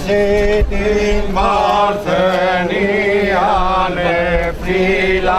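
Men singing Byzantine chant: a melismatic melody that wavers and bends over a steady held drone note (ison).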